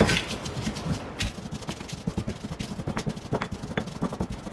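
Stone pestle grinding and scraping toasted dried chiles, onion, garlic and salt in a volcanic-stone molcajete: a quick, irregular run of gritty scrapes and clicks.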